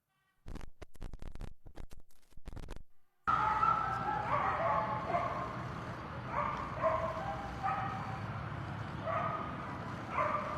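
A dog whining and yelping in short, high-pitched calls, about seven in a row, over steady background noise. A run of rapid clicks comes first.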